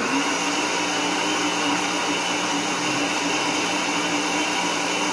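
Electric countertop blender running steadily at full speed, blending pineapple, apple and banana peel with water into juice.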